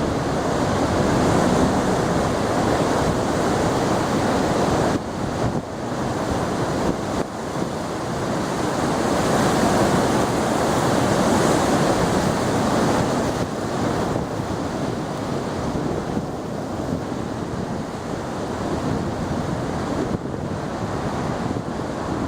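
Heavy surf breaking continuously, a steady rush of waves that swells louder around the middle and eases toward the end, with wind on the microphone. The big waves are a long swell sent in by a typhoon far offshore.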